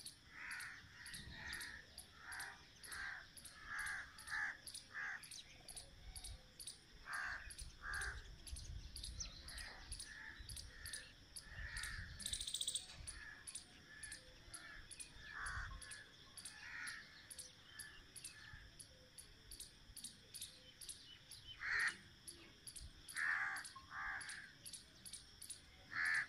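Faint countryside ambience: birds giving short repeated calls, in bunches through the first half and again near the end, over an even high chirping of insects about twice a second.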